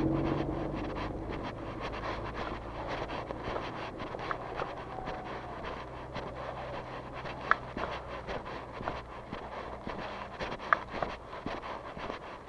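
Footsteps of a person walking, heard as a run of small regular clicks, while a passing vehicle's engine fades away in the first second or two. A few sharper clicks stand out a few seconds apart.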